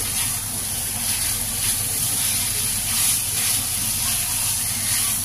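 Shredded chicken and spice paste sizzling steadily in a nonstick frying pan as it is stirred with a silicone spatula, with a few faint scrapes of the spatula against the pan.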